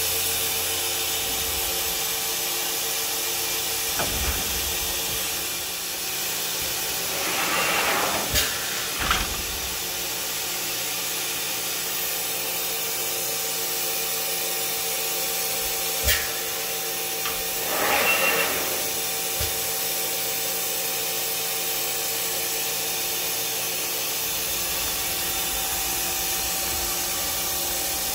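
Mori Seiki MT-1500SZ CNC turn-mill center running: a steady hiss and hum with two steady tones, two swells of rushing noise about ten seconds apart as the machine's units move, and a few sharp clunks.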